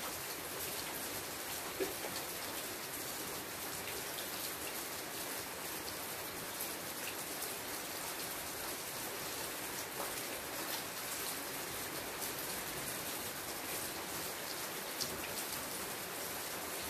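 Steady rain falling on the leaves of a shrub: an even hiss dotted with many small drop ticks, with one sharper tap about two seconds in.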